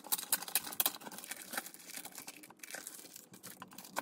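Crinkly packaging being handled and torn open, a dense run of irregular crackles and rustles.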